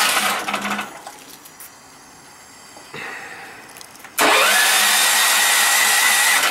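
Yamakoyo SH7000DXE generator's 13 hp engine cranked by its electric starter on natural gas without catching. One cranking run stops just after the start, there is a click about three seconds in, and a second crank starts about four seconds in, the starter whine rising and then holding steady.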